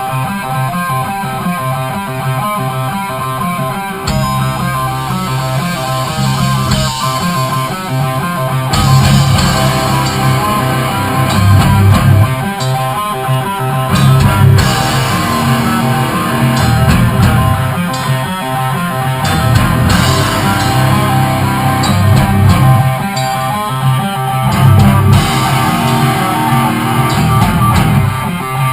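Rock band playing: electric guitar on its own at first, bass coming in about four seconds in, then the drum kit joining a few seconds later for the full band.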